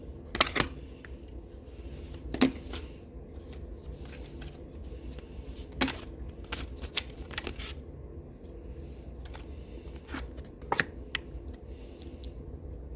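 Tarot cards being shuffled and handled, with scattered sharp snaps and taps of the cards, over a low steady hum.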